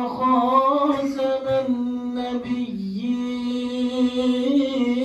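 A man reciting the Quran in the melodic, drawn-out tajwid style, holding long notes that waver and bend in ornaments.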